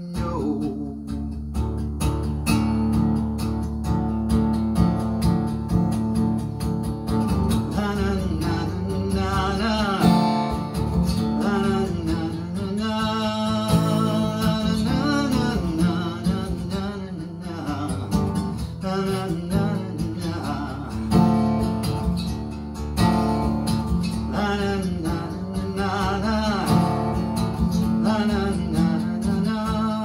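Acoustic guitar strummed and picked in a steady song accompaniment, starting up sharply at the beginning, with a man's voice coming in along with it at times.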